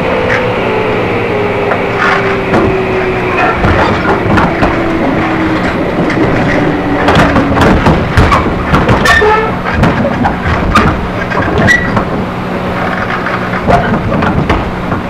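Running sound of a JR East 211 series electric train, the version with externally fanned traction motors, heard on board. The motor whine falls steadily in pitch over the first half as the train slows, over a constant clatter of clicks and knocks from the wheels and rails. A steady low hum takes over about halfway.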